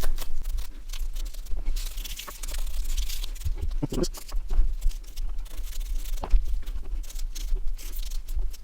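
Small Nokia 1100 phone parts being dusted by hand: irregular scratchy rustling with light clicks and taps.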